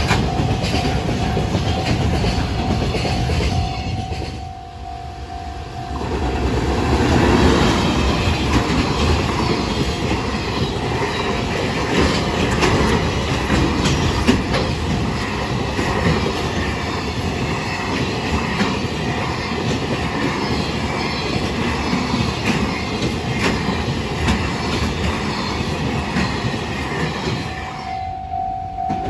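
Freight train of container wagons passing over a level crossing at speed, its wheels clattering over the rail joints. A Japanese level-crossing bell rings over it at the start, then drops out during a brief lull about five seconds in. The bell comes back near the end, just after a second short dip.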